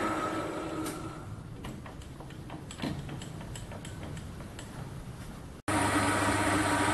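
Bench lathe running, then spinning down and stopping about a second in, followed by a few seconds of scattered light clicks and taps at the machine. Near the end it cuts suddenly to the lathe running again, boring aluminium.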